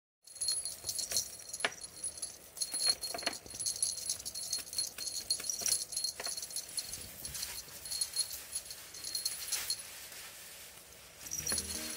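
A small collar bell jingling irregularly as a kitten bats at and bites a cat-teaser wand toy, with light knocks and scuffles of paws and toy. Background music comes in near the end.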